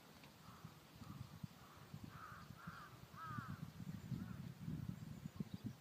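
Faint bird calls: a series of short, arched calls spread over the first four seconds, over a low rumble.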